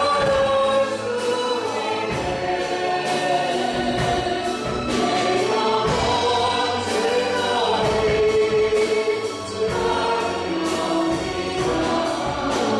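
A church praise team singing a worship song together, with a band accompanying and a steady beat of drum hits.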